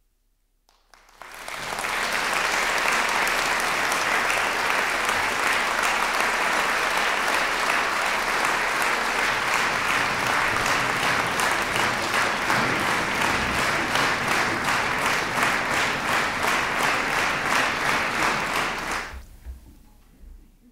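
Concert-hall audience applauding at the end of a song: the clapping swells up within the first two seconds, holds steady and full, falling into a faint even beat in its later part, then dies away near the end.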